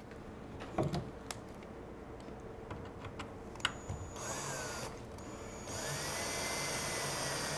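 Cordless drill driving a wood screw into treated lumber. A short run comes about four seconds in, then a longer steady run from about six seconds in that winds up and holds. A few light clicks and knocks come before it.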